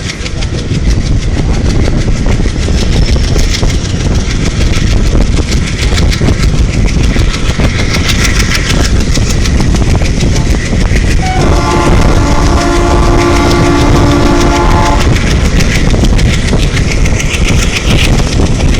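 WDM-3A diesel locomotive hauling an express train as it accelerates: the engine runs loudly and the wheels clatter over the rail joints. About two-thirds of the way through, the locomotive's horn sounds one long blast of several notes together, lasting about three and a half seconds.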